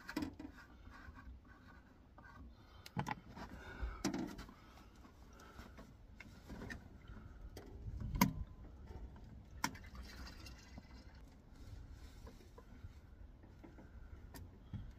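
Scattered light clicks, knocks and scraping as a portable diesel heater and its fittings are handled and hooked up, with no steady running sound from the heater.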